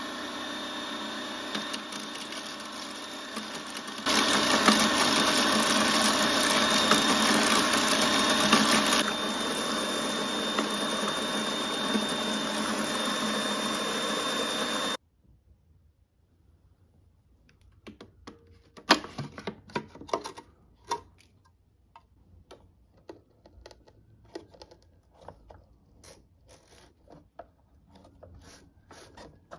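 Electric food processor running steadily as its blade grinds Oreo cookies into fine crumbs, with a high motor whine. It gets louder and rougher between about four and nine seconds in, then cuts off suddenly about halfway through. After that come faint, scattered clicks and knocks of hands working at the plastic bowl and blade.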